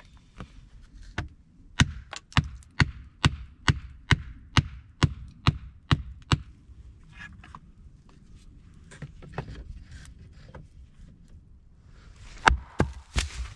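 Wood being struck repeatedly with a tool: a run of about a dozen sharp wooden knocks, about two a second, then a few light clicks, and near the end several more loud knocks.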